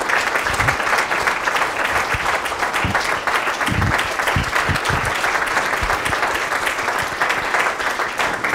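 Congregation applauding steadily, a dense unbroken clapping, with a few low thumps around the middle.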